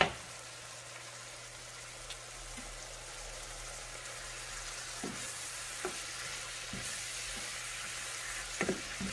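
Chopped vegetables sizzling as they stir-fry in a pan, with a sharp knock at the very start and a few light clicks of the stirring spoon against the pan in the second half.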